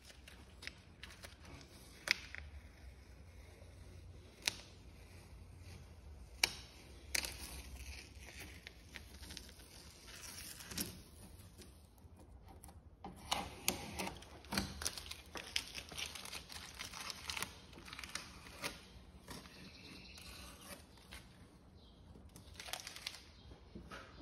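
Blue masking tape being peeled off freshly painted surfaces, with tearing and crinkling as the used tape is crumpled in the hand; faint, with scattered sharp clicks and crackles.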